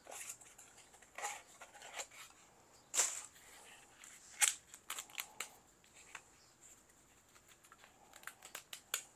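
Hands handling a cardboard box and a plastic printer part: irregular clicks, taps and rustles. The sharpest clicks come about three seconds in and again about a second and a half later, with a flurry of small ticks near the end.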